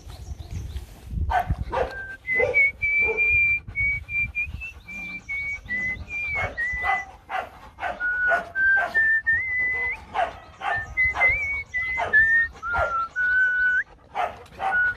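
Rottweiler whining while being petted: a thin, high, drawn-out whine that steps up and down in pitch, broken by quick panting breaths.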